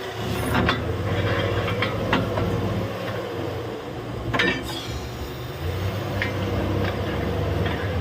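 Borewell drilling rig's engine running steadily, with scattered metallic clanks and knocks, the loudest about halfway through.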